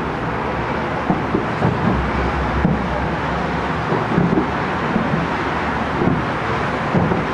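Steady city traffic noise and wind on the microphone, with a few faint, distant fireworks bangs.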